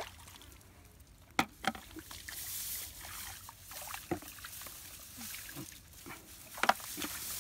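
Muddy water sloshing and pouring as buckets bail out a shallow pond, with several sharp knocks and splashes.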